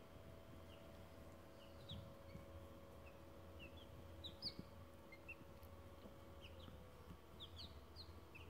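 Day-old Cochin chicks peeping quietly: scattered short high cheeps, each sliding down in pitch, with the loudest one about halfway through. A faint steady hum lies underneath.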